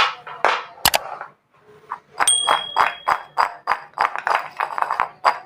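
Metal kitchenware clinking and tapping: two sharp knocks, then about two seconds in a ringing ding followed by a run of quick metallic taps, about three a second.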